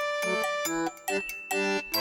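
Light, cheerful background music played on a keyboard instrument, with a short break about a second in.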